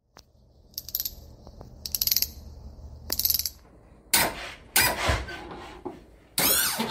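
Logo intro sound effects: three short runs of rapid clicking about a second apart, then two whooshes and a final swish with a gliding pitch.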